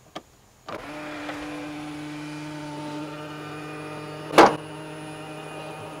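Tesla Model X middle-row power seat motor humming steadily as the seat travels, with one sharp, loud pop about four and a half seconds in: the pedestal's cover plate, stuck, springing free near the end of travel, a known fault on this car.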